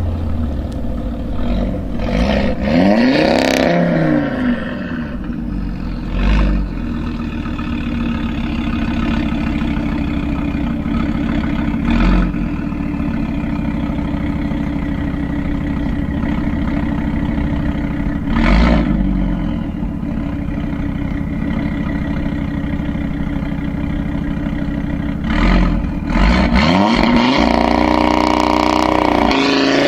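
Audi RS3's turbocharged five-cylinder engine through a Milltek exhaust, running steadily. The revs rise and fall near the start and again near the end, with several sharp exhaust bangs.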